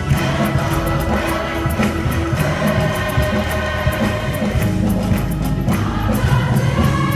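Massed children's choirs singing together with accompaniment and a steady beat.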